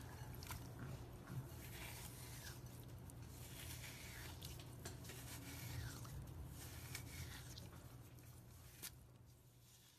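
Hands squishing and pressing glitter-covered slime, with faint sticky crackles and clicks; the sound fades out near the end.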